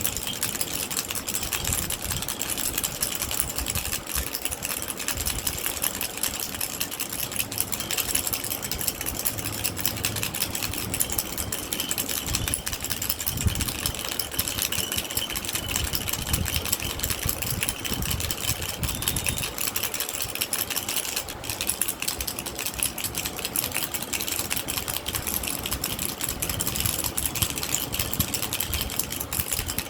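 Baby rattle shaken continuously, a steady rapid clatter of small rattling pieces.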